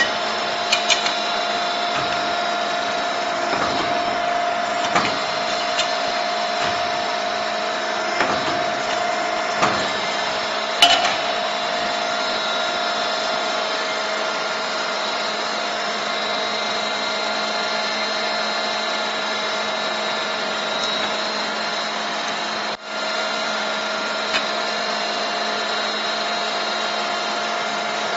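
30-ton CNC busbar punching and bending machine running, with the steady hum and whine of its motor and hydraulic pump. A few sharp metallic knocks come in the first half, the loudest about eleven seconds in.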